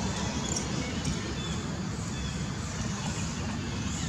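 Steady outdoor background noise: a low rumble with an even hiss over it and a few faint short chirps.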